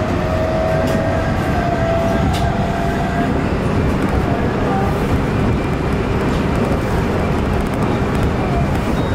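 Nankai 8300 series electric train running between stations, heard from on board: a steady, loud rumble of wheels on rail, with a faint tone that rises a little and fades in the first few seconds.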